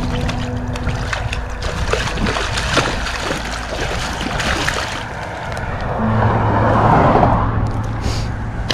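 Water sloshing and splashing against the side of a small boat, with scattered light knocks, swelling louder about six seconds in.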